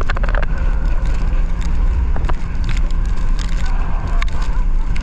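Wind rushing over the microphone and water hissing as an inflatable tube is towed at speed across the sea, a loud steady rumble with scattered knocks.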